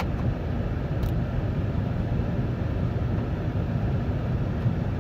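Steady low rumble of a 2008 Chevy Tahoe driving on a snowy road, engine and tyre noise heard from inside the cabin, with a faint click about a second in.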